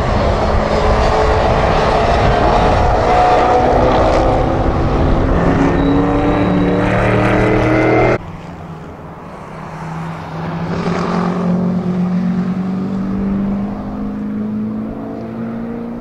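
TVR Griffith's V8 racing engine at speed through a corner, with a second car's engine close behind; the engine note rises and falls with the throttle. About eight seconds in, the sound cuts abruptly to a quieter, more distant race-car engine accelerating, its pitch climbing.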